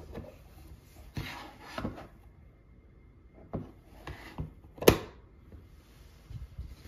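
Hinged plastic lid of a detergent container being handled: a few light knocks and rubbing as it is opened, then a sharp click just before five seconds in as the lid snaps shut, and a few small taps after.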